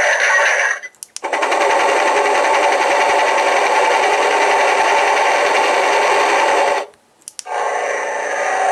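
Mini Hornit bike sound-effects unit playing its built-in effects through its small speaker, stepping from one effect to the next. One effect cuts off just before a second in, followed by a brief silence with a click. A long effect with a fast, even pulse then runs until about seven seconds, another short gap and click follow, and the next effect starts.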